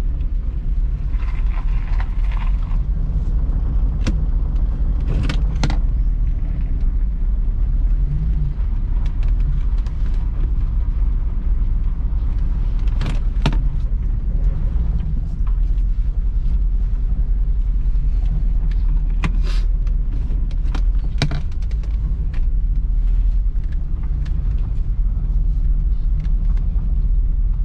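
Old car driving, heard from inside the cabin: a steady low rumble of engine and road, with sharp knocks and rattles now and then.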